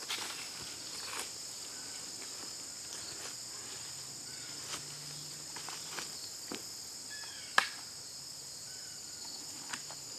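Steady high-pitched insect chorus, with scattered snaps and rustles as a small cedar tree is worked down into its planting hole by hand; one sharper snap about seven and a half seconds in.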